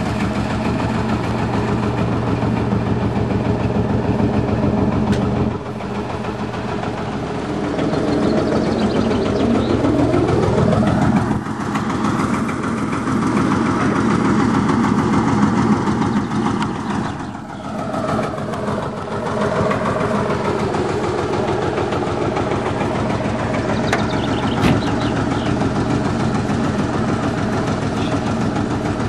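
An engine running steadily with a regular chugging beat. A second engine note rises in pitch about eight seconds in and cuts off near eleven seconds, and rises again briefly around eighteen seconds.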